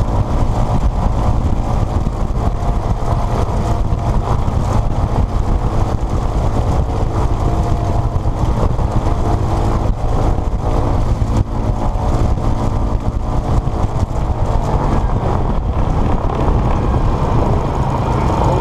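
Vultee BT-13A Valiant's Pratt & Whitney R-985 nine-cylinder radial engine running steadily on the ground, heard from the open rear cockpit. It is a loud, deep rumble whose tone shifts slightly about fifteen seconds in.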